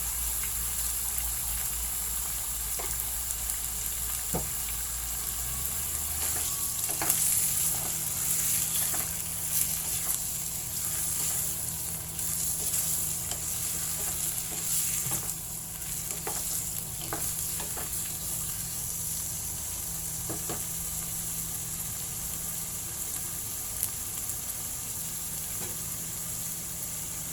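Chicken pieces sizzling steadily as they sauté in oil with garlic and ginger, with occasional short clicks from stirring in the pan.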